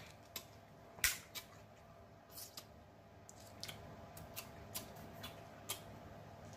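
Scattered sharp clicks and smacks from eating snow crab legs by hand: shell being picked apart and the mouth working on the meat and fingers, with the loudest click about a second in.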